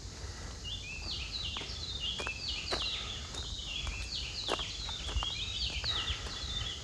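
A bird calling in a quick run of short, high chirps that step up and down in pitch and keep going for several seconds. Footsteps on the trail and a low rumble of wind or handling sit under it.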